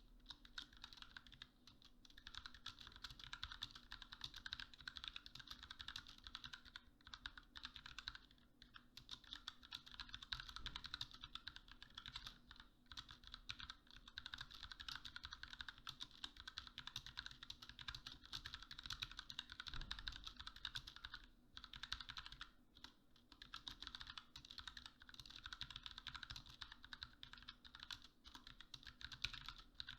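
Continuous fast typing on a GMMK 60% mechanical keyboard with Kailh Pro Plum tactile switches: a rapid stream of keystroke clacks, with a few short pauses.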